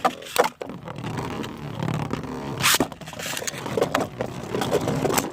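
Two Beyblade Burst spinning tops whirring and scraping around a plastic stadium, clashing with repeated hard hits, the sharpest about half a second and nearly three seconds in.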